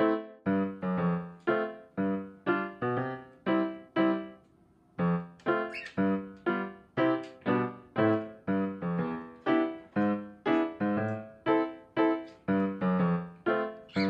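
Background music on a piano-like keyboard: a steady run of struck notes, about two a second, each dying away, with a short break about four and a half seconds in.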